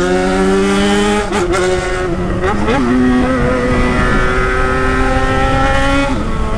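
Yamaha XJ6's inline-four engine running loud under throttle, heard from the rider's seat: a steady, buzzing note that dips and picks up again a few times.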